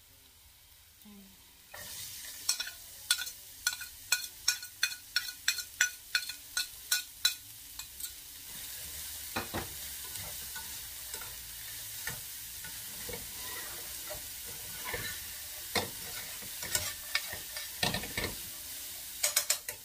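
Chopped onion sizzling in hot oil and garlic in a stainless steel skillet while a metal spatula stirs it. After about two quiet seconds comes a quick run of spatula taps and scrapes on the pan, two or three a second, for about five seconds. Then a steady sizzle with occasional scrapes and taps.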